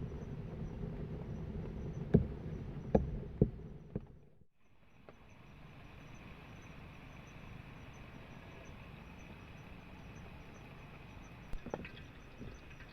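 Forest ambience of steady insect chirring over a soft hiss, preceded by a low rumble with three sharp knocks that stops abruptly, with a few light clicks near the end.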